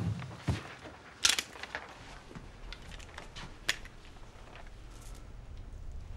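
Small handling noises: a short rustle about a second in and a sharp click a little later, with a few fainter ticks. Underneath is a low hum that grows louder near the end.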